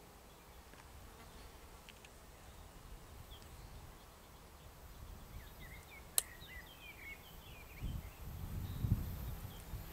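Faint countryside ambience with small birds chirping, a single sharp click about six seconds in, and a low buzz near the end, loudest about nine seconds in.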